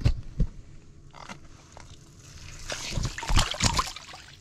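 A burbot let go down an ice-fishing hole: a couple of knocks as it is handled, then water splashing and sloshing in the hole about three seconds in.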